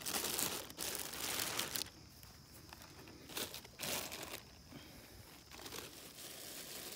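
A clear plastic garbage bag crinkling and rustling as handfuls of fresh grass clippings are stuffed into it. It comes in irregular bursts, busiest in the first two seconds, with a couple more a little after the middle.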